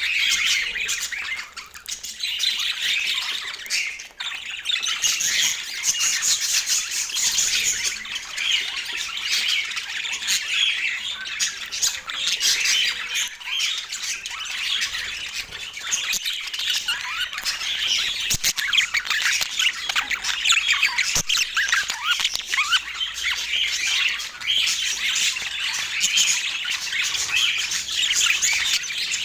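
Budgerigar chatter: a continuous, dense stream of quick chirps, squeaks and squawks.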